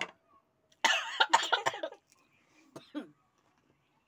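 A person coughing in a quick run of several harsh coughs about a second in, with two more short coughs a little before the end of the third second. It is coughing from the chilli heat of spicy panipuri.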